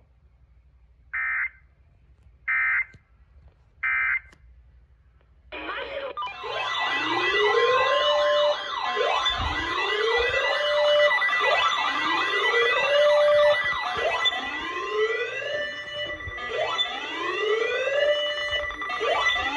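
Three short EAS end-of-message data bursts, about a second and a half apart. From about five seconds in, several overlapping siren wails rise and fall over and over.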